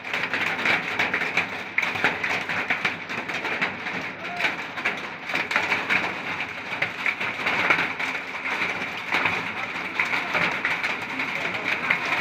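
Heavy rain pouring down: a steady dense patter of many small drop hits that keeps on without a break.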